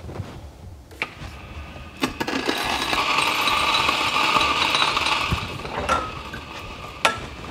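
Weber Workshops Key electric conical-burr espresso grinder grinding a dose of coffee beans. It starts about two seconds in, is loudest for the next few seconds, then winds down. A sharp click comes near the end.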